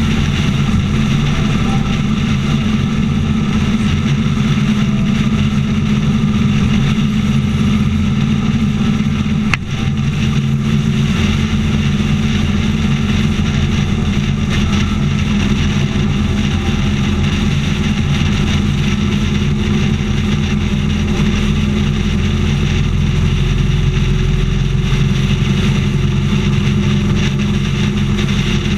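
Motorcycle engine running steadily at highway cruising speed, with wind rushing over the bike-mounted microphone. One short click about a third of the way through.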